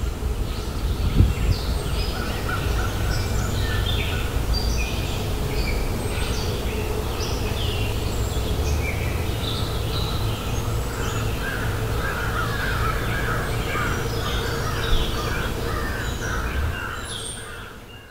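Outdoor birdsong: many birds chirping and calling in short, irregular phrases over a steady low rumble. The sound fades out near the end.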